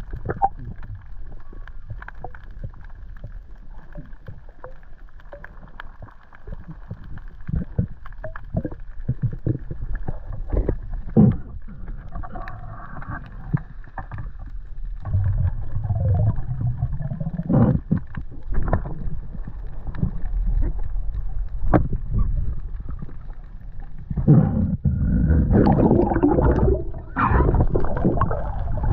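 Muffled underwater sound through an action camera's waterproof housing: a low water rumble with scattered sharp clicks and knocks, growing louder about halfway through and loudest in a rush of noise near the end.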